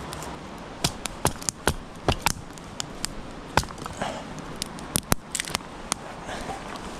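Split firewood kindling sticks knocking and clattering against each other and the rocks as they are picked up and stacked onto a small, newly lit campfire. The sound is a string of sharp, irregular wooden clicks starting about a second in.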